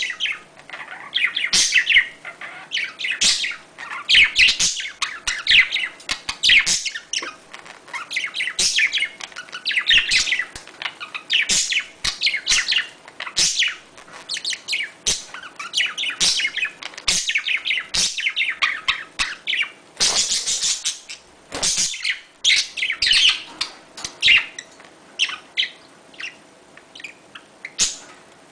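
A pair of budgerigars chattering and warbling in quick, high chirps, several a second, during mating. About two-thirds of the way through, a short rustling burst of fluttering wings.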